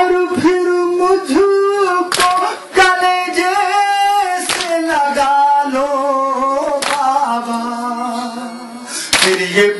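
A male reciter chanting a Shia noha lament through a microphone, holding long drawn-out notes, while mourners beat their chests in matam, a sharp slap landing about every two and a half seconds.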